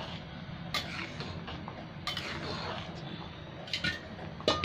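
Metal spatula stirring cooked moong dal in an aluminium pan, with a few scattered clinks and scrapes of metal on the pan over a steady low hum.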